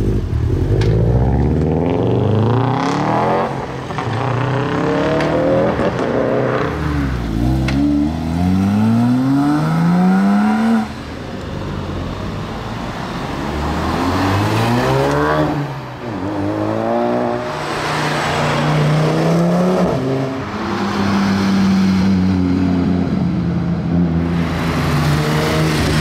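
Performance cars accelerating past one after another, engines revving up through the gears in repeated rising sweeps with a drop at each shift. A Subaru WRX STI's turbocharged flat-four pulls away hard first, a Ford Focus RS follows, and near the end a classic Porsche 911's flat-six runs at steadier revs.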